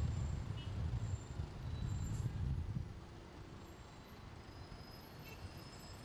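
Street traffic: a low, uneven rumble of a bus and cars moving through an intersection, louder for the first few seconds and then easing off.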